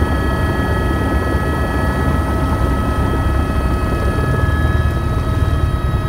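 Helicopter's turbine engine and rotor running steadily, heard from inside the cabin: a low rotor drone with several steady high whining tones over it.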